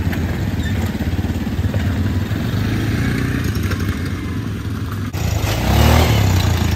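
ATV engines running at low speed. Near the end one quad passes close and the engine sound gets louder, its pitch rising briefly.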